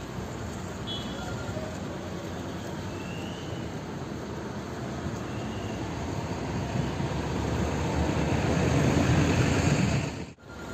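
Roar of a large fire burning through trees: a steady noisy rumble that swells louder near the end and then cuts off suddenly.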